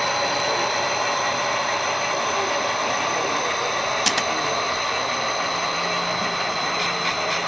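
Model railroad passenger train rolling along the track: steady running noise with a high whine, and one sharp click about four seconds in.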